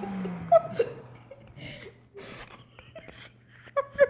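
Vacuum cleaner motor winding down, its pitch falling and fading within the first second. Then scattered soft squeaks, sniffs and rustling, and a burst of laughter starting near the end.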